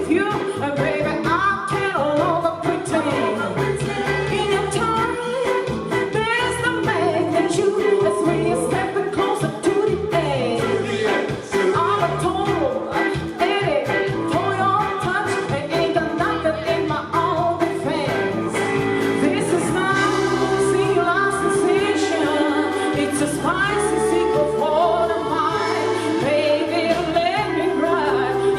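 Live blues band playing loudly: drums keeping a steady beat under bass and a lead melody that bends in pitch, with singing.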